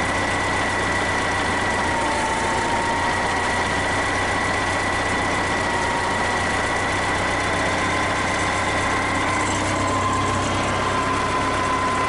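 Case 580B backhoe's engine idling steadily with a constant high whine over it, while the hydraulic power steering swings the front wheels from lock to lock; the whine shifts slightly in pitch twice.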